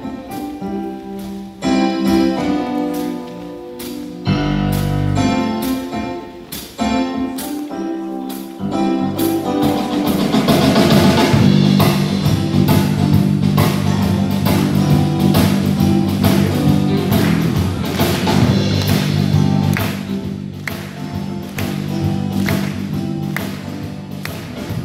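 Live jazz band playing: a sparse, quieter opening with held chords, then the full band, drum kit included, comes in about nine seconds in and plays louder.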